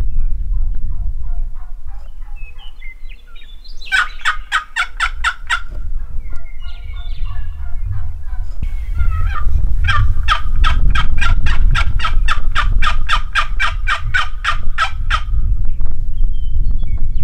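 Turkey yelping: a short run of about seven quick raspy yelps, then after softer calls a long even run of about twenty yelps, about four a second. A low wind rumble on the microphone runs underneath.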